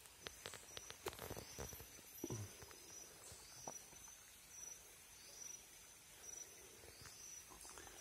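Faint insect chirping: one high, thin note repeating a little more than once a second. There are a few soft clicks and rustles in the first couple of seconds. The howler monkey is not calling.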